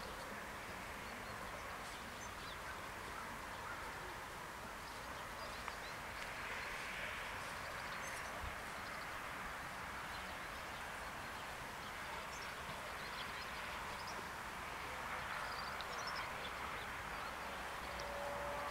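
Rural outdoor ambience at a level crossing waiting for a train: a steady hiss that swells and fades slowly, with scattered faint bird chirps.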